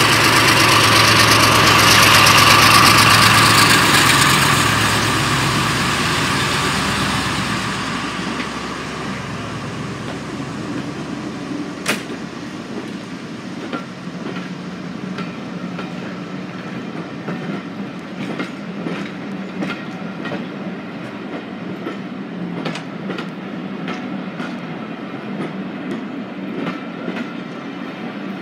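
Class 35 Hymek diesel-hydraulic locomotive D7018 pulling away, its Maybach MD870 diesel engine loud at first and fading after about five seconds as it moves off. Then the coaches roll past with a run of wheel clicks over the rail joints, including a sharp metallic click about twelve seconds in.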